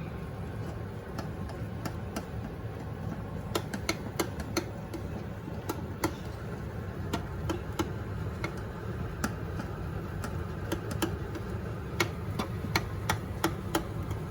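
A metal utensil tapping and clicking against a cooking pot while something is stirred in, the taps sharp and irregular at roughly one a second over a steady low hum.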